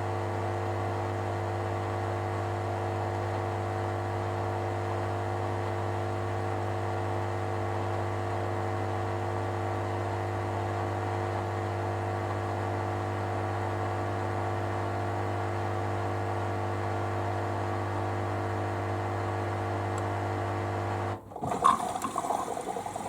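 Hoover Dynamicnext washer-dryer spinning its drum at a steady low speed of about 400 rpm between rinses: an even motor hum. It cuts off sharply about 21 seconds in, followed by a brief knock and clatter.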